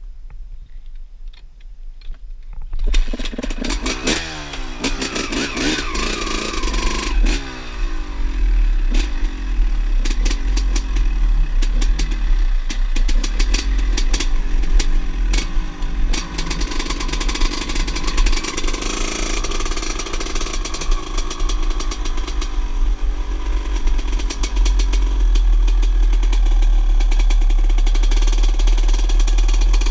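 Small two-stroke engine coming in suddenly about three seconds in, revving up and down with many sharp clicks, then settling to a steadier run near the end.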